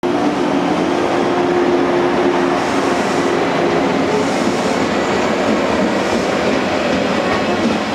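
Yellow JR West electric multiple unit (Okayama set E05) running past along the platform track, a steady loud rumble of wheels on rail. A steady hum sounds through roughly the first half and then fades.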